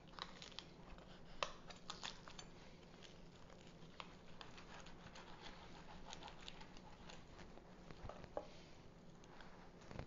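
Roast turkey's crisp skin and meat crackling and tearing as a breast is pulled off the carcass by hand: faint scattered small crackles, thickest in the first two seconds, over a steady low hum.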